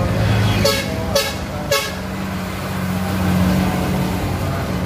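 A vehicle horn gives three short toots about half a second apart. Under it runs the steady hum of a heavy truck's diesel engine, which swells as the truck passes close.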